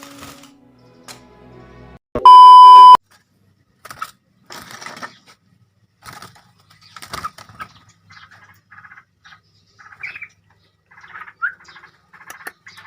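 A loud electronic beep, one steady tone just under a second long, about two seconds in. After it come scattered clicks and bursts of rapid, rattling chirps from yellow-vented bulbuls, with two short rising chirps near the end.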